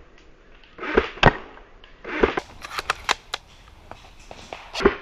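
Airsoft gunfire: single sharp shots about a second in and again a little after two seconds, a quick rattle of cracks around three seconds in, and one more shot near the end.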